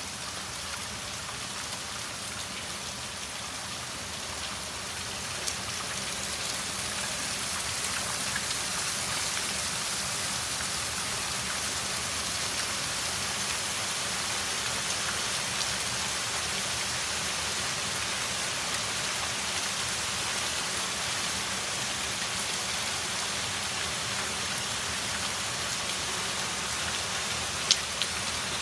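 Hail and rain pelting the pavement, plants and roofs: a dense, steady hiss that builds over the first several seconds and then holds. A sharp click sounds near the end.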